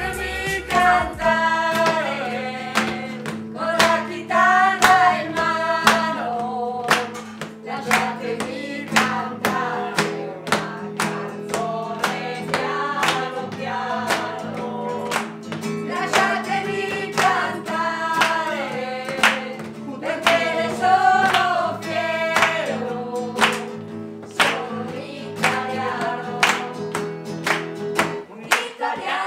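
Singing accompanied by acoustic guitar, with a steady beat of sharp strokes about two a second.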